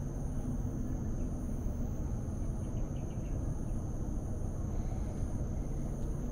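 Outdoor ambience: a steady low rumble under a continuous high-pitched insect drone, with a few faint chirps about three seconds in.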